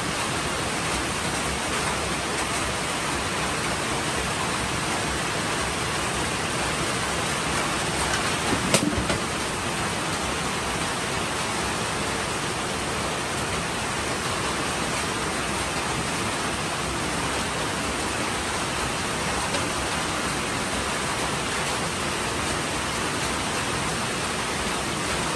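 A steady, even hiss, with a single sharp knock about nine seconds in.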